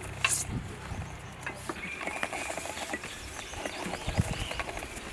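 Quiet background with scattered light knocks and clicks, and a short high chirp about two seconds in.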